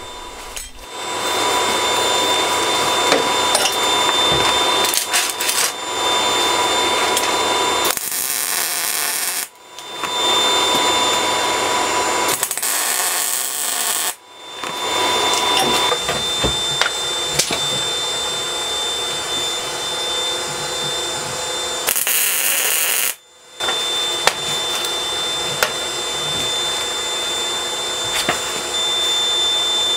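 A power tool on steel running with a steady high whine, changing three times to short spells of arc-welding crackle and hiss.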